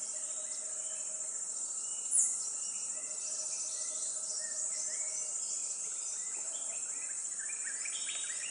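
Steady, high-pitched chorus of insects, crickets or cicadas, with faint bird calls scattered through it. One short, sharp falling whistle about two seconds in.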